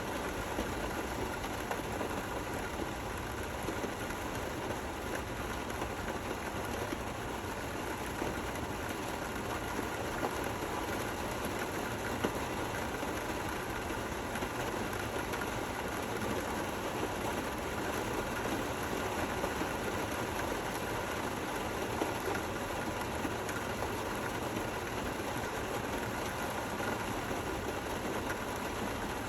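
Steady, gentle rain falling: an even hiss with a fine patter of many small drops, unchanging throughout.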